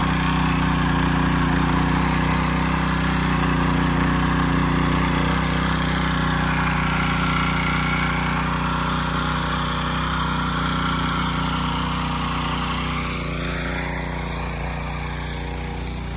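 Small petrol walk-behind rotary tiller running steadily under load as its tines churn the soil; it grows a little fainter over the last few seconds.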